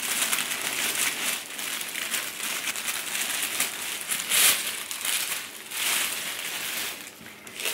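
Sheets of tissue paper rustling and crinkling as hands unfold and lift them, loudest about four and a half seconds in.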